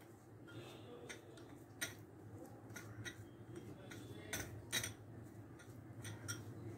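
Scattered light clicks and taps of bowls and tray knocking together as hands knead a soft dough in a bowl, irregular, with a few sharper knocks, over a low steady hum.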